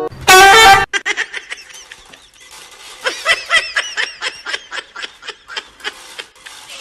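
A loud, brief shriek just after the start, then a long run of quick, high-pitched laughter in rapid short bursts.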